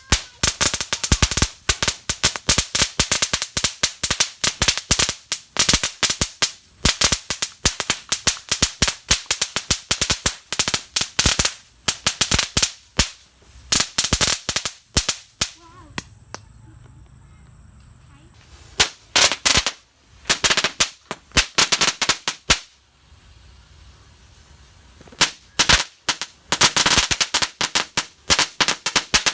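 A string of small firecrackers going off in rapid, irregular sharp bangs, several a second. The bangs thin out and stop for several seconds about halfway through, then start again near the end.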